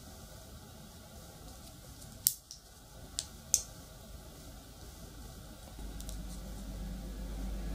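Three sharp metallic clicks within about a second and a half, the first and last the loudest: neodymium disc magnets snapping onto the ends of an AA battery. Near the end a low hum comes in and grows louder.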